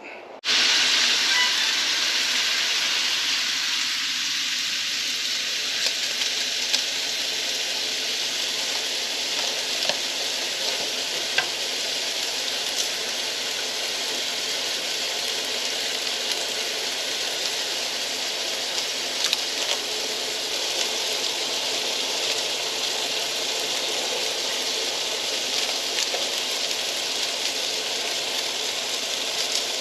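Motel shower or tub tap running full on, a steady hiss of water that starts abruptly just after the beginning.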